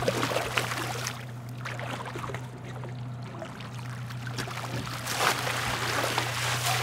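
A hooked steelhead thrashing and splashing at the water's surface, then water sloshing as it is scooped into a landing net near the end, over a steady low hum.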